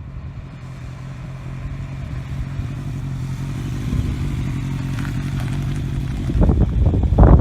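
1997 Honda Nighthawk motorcycle approaching at speed, its steady engine note growing louder, then a loud, uneven low rumble near the end as it comes close.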